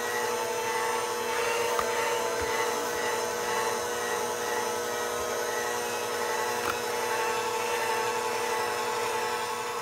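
Electric kitchen mixer running at a steady speed with an even motor whine, blending cornbread batter.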